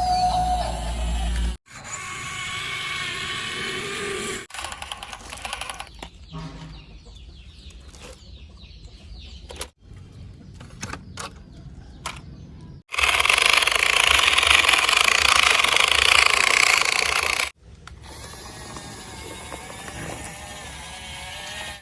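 Small electric motors whirring in a series of short clips, each cut off abruptly; the loudest and harshest whir comes past the middle and lasts about four seconds.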